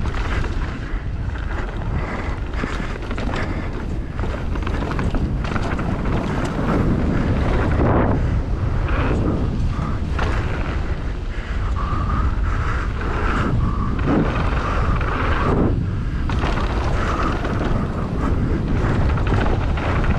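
Wind buffeting the microphone during a fast downhill run: a continuous rough rumble with swells and rushing surges as the ride goes on.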